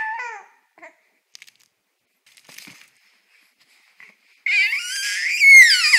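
Baby's happy, high-pitched squeal that starts about four and a half seconds in, rising and falling in pitch. The end of an earlier squeal fades out in the first half-second, and there are only a few faint clicks between them.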